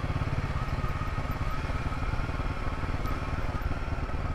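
Motorcycle engine running steadily while the bike rides over a rough, rocky off-road track.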